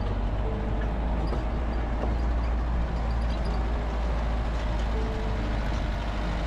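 Safari jeep driving along a dirt forest track: steady engine and road noise, heaviest in the low end.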